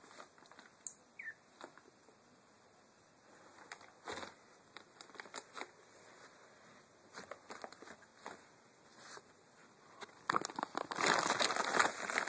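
Blue woven-plastic IKEA bag rustling and crinkling as a kitten paws and scratches at it: scattered short rustles, then a longer, louder burst of crinkling near the end.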